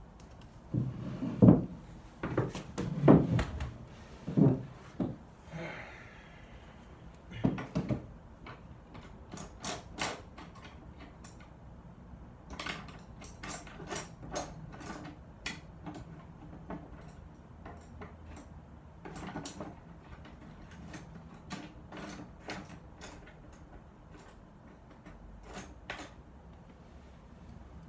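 Wooden knocks and thumps as a wooden painter's easel box is handled, loudest in the first three seconds and again about seven seconds in, followed by a long string of light clicks and taps.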